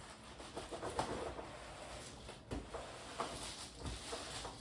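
Faint handling noise, a few light knocks and rustles, as a plastic conical fermenter is handled and a clear plastic cover is lifted off it.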